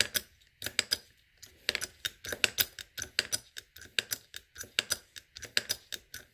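Rebuilt hydraulic bottle jack being pumped by hand as its ram rises. The pump lever and plunger clack in a steady run of sharp clicks, about two or three a second.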